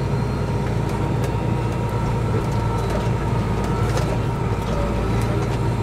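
Massey Ferguson tractor engine running steadily under load while pulling a loaded dirt scraper, heard from inside the cab, with a steady high whine over the low engine rumble and a few faint clicks and rattles.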